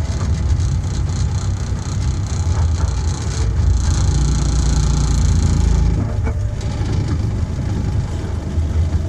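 Miniature railway train running along 12-inch gauge track, heard from the locomotive: a steady low rumble that eases a little about six seconds in.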